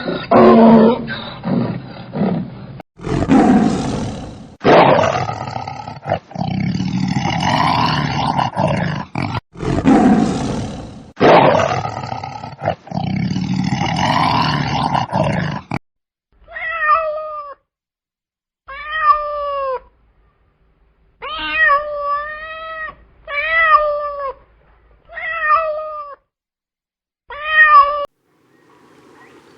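A cat meowing: about seven separate meows in the second half, each rising then falling in pitch. The first half holds louder, harsher, dense animal calls from spliced clips.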